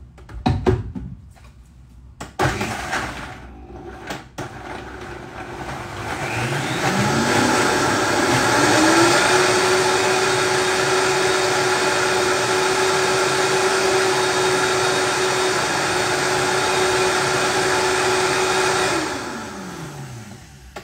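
A few knocks as the Vitamix blender jar and lid are handled. Then the Vitamix motor winds up over a few seconds, runs steadily while blending a thick macadamia-nut, date and tomato sauce, and winds down in pitch near the end.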